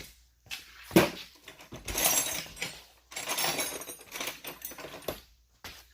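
Metal sockets clinking and rattling as a box of sockets is rummaged through in search of an 8 mm socket, with a sharp clack about a second in.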